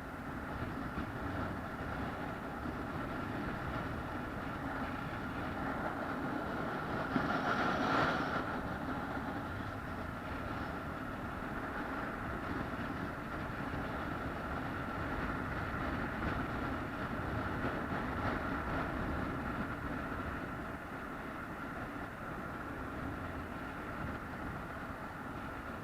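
Steady running noise of a vehicle in motion, heard from inside, with a constant whine. It swells briefly about eight seconds in.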